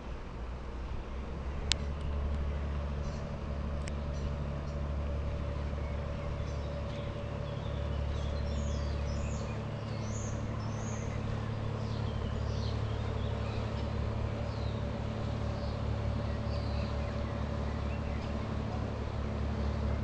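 Passing river excursion ship's engine giving a steady low drone, with birds chirping high above it in the middle stretch. A sharp click stands out about two seconds in.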